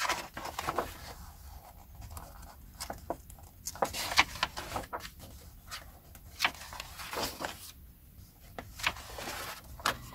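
Paper being handled as book and magazine pages are turned: irregular short rustles and small taps.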